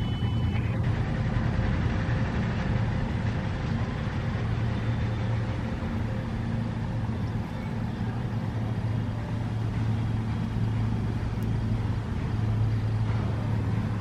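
Steady low hum of a motor or engine running at a constant pitch.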